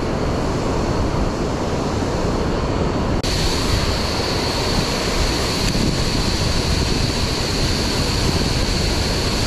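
Steady rush of water pouring over a river dam spillway, with wind noise on the microphone. A little after three seconds in it changes abruptly to a brighter, louder rush of water falling close by over a rock waterfall, with a steady high hiss.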